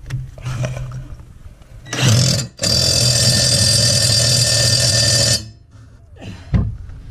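Impact wrench running in one steady buzzing burst of about three seconds, starting about two and a half seconds in and cutting off abruptly, driving a lawn mower blade bolt.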